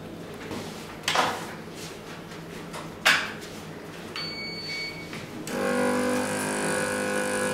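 Clinic room noise with two short sharp clatters, about one and three seconds in, then soft background music with plucked strings starting about halfway through.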